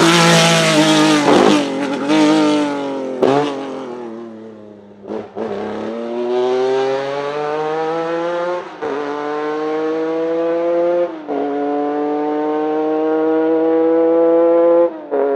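Lancia Stratos Gr.4's Ferrari Dino V6 passes close at speed and its note falls away. It then accelerates hard away through the gears, the pitch climbing in each gear, with three quick upshifts.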